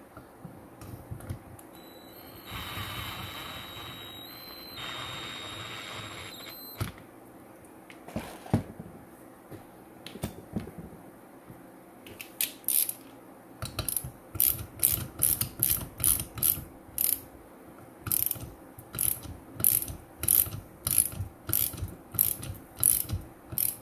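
Hand ratchet wrench clicking in short strokes, about two a second, snugging down the bolts of a homemade valve spring compressor. Before the ratcheting starts there are a few seconds of steady hiss.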